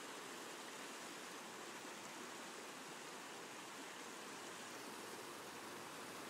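Faint, steady rush of creek water flowing over a shallow bed.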